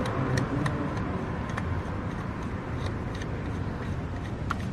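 Steady low rumble of passing road traffic, with a few faint light clicks from the motorcycle's oil-filter cover bolts being handled.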